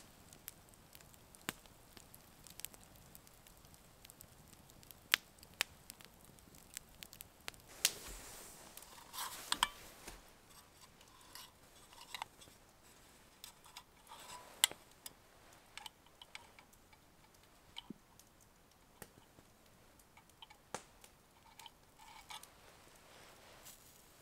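A UCO candle lantern being handled and lit with a wooden match: scattered small sharp clicks and light rustles, with a few louder isolated snaps and a brief scratchy flare partway through.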